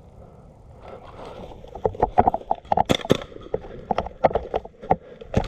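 Rapid, irregular knocks, clicks and rustling, starting about two seconds in and continuing in a dense, uneven run.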